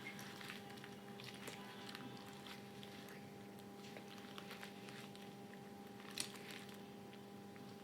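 Sporting (gym) chalk in water: faint scattered crackles and clicks, with one sharper click about six seconds in, over a steady low hum.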